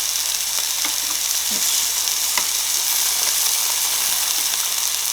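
Pork belly sizzling on a Korean barbecue grill: a steady hiss with an occasional faint crackle of fat.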